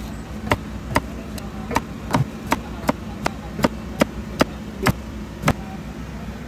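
Meat cleaver chopping through a strip of crispy-skinned roast pork belly onto a round wooden chopping block, cutting it into slices. It is a steady run of sharp chops, about three a second, that stops about five and a half seconds in.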